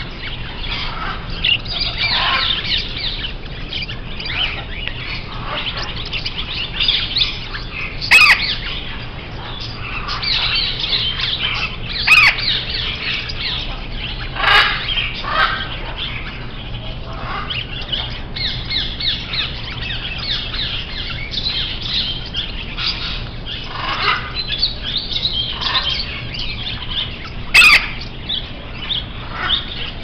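A roomful of small caged birds chirping and squawking in a dense, overlapping chorus that does not let up. Four short, sharp clicks stand out as the loudest sounds.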